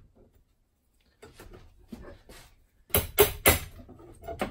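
A claw hammer striking a small flat bar (hive tool) held against a wooden board, three sharp hits in quick succession about three seconds in and a lighter one near the end, knocking old glue residue off the wood.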